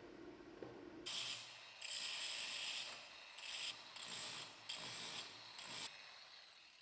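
A steady low hum, then from about a second in a run of about six short, high-pitched rasping mechanical bursts, ratchet-like.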